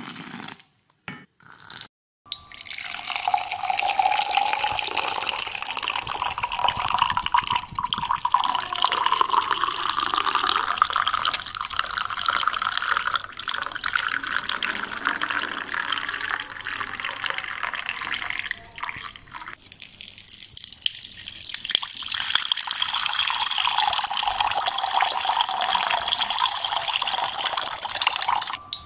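Liquid pouring in a steady stream into a cup or glass, starting about two seconds in, with a tone that rises over the first pour. It drops away briefly about two-thirds through, then a second pour runs until it cuts off just before the end.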